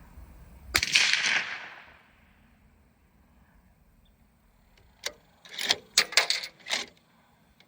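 A single shot from a suppressed 6.5 Creedmoor bolt-action rifle about a second in, its report ringing away over about a second. About five seconds in comes a quick run of sharp metallic clicks as the bolt is worked to chamber the next round.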